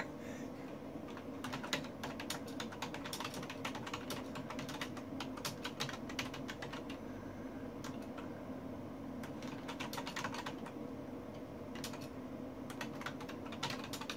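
Typing on a computer keyboard: quick runs of keystroke clicks starting a second or so in, broken by a couple of short pauses, over a faint steady hum.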